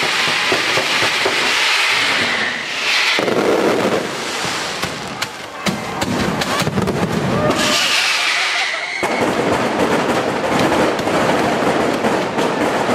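Daytime fireworks display: a dense, continuous barrage of firecracker crackling and bangs, with a high whistle gliding down in pitch about two seconds in and again about eight seconds in.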